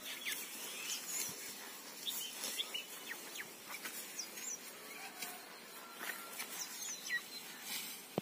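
Outdoor ambience with birds chirping: many short, scattered chirps over a steady background hiss.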